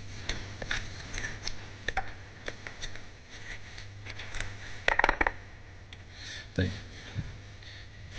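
Light clicks, taps and scrapes of kitchen utensils being handled at a counter, with a short rattling clatter about five seconds in and a dull thump soon after. A low steady hum runs underneath.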